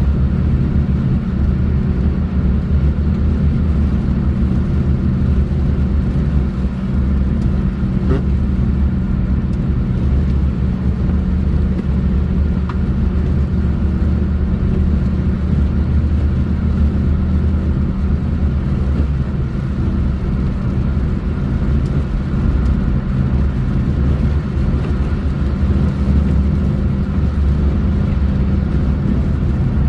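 Car driving at a steady speed: a low, steady rumble of engine and tyres on the road.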